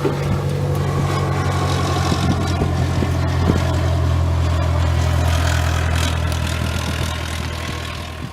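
Aircraft engine running steadily: a low droning hum with a rushing hiss above it, swelling slightly in the middle and fading near the end.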